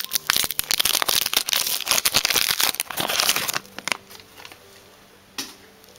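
Foil Pokémon booster pack wrapper crinkling as it is handled and opened, a dense crackle for about three and a half seconds that then stops, with one short crinkle near the end.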